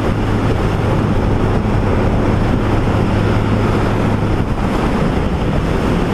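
Wind rushing over the microphone on a motorcycle ridden at road speed, with the engine's steady low hum underneath.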